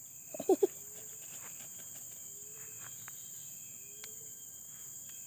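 Steady, high-pitched insect chorus. About half a second in comes a brief, louder sound made of three quick pitched pulses, and a faint short rising call repeats about every one and a half seconds.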